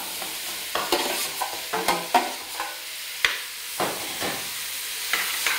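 Chopped root vegetables sizzling as they brown in a steel pot, with onion and leek tipped in. A metal ladle scrapes and clinks against the pot again and again as the vegetables are stirred.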